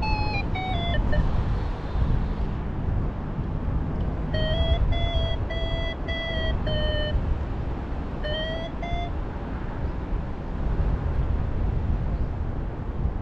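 Paraglider's variometer beeping in short tones: a falling run that ends about a second in, a run of level beeps around the middle, and a few rising beeps after it, the vario's climb tone signalling lift while ridge soaring. Wind rumbles on the microphone underneath.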